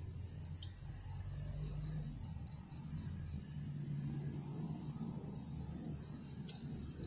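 Outdoor ambience: a low steady rumble with faint, scattered high chirps of small creatures.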